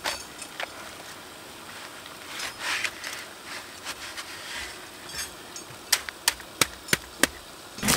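Steel shovel scraping and scooping wet concrete from a wheelbarrow and dropping it into a cardboard form tube for a concrete pier. Near the end come five sharp knocks, about three a second.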